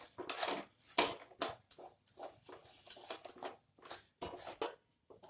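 Wooden spatula scraping and stirring a thick milk-powder mawa around a metal kadhai, with rough scrapes at roughly two a second that stop near the end.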